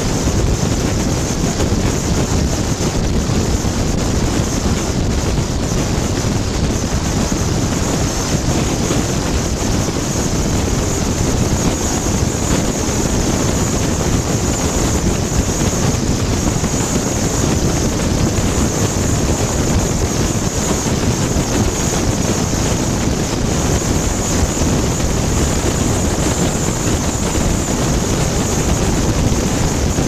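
Steady wind and road noise of a car driving at speed: a constant deep rumble under a hiss, with wind on the microphone.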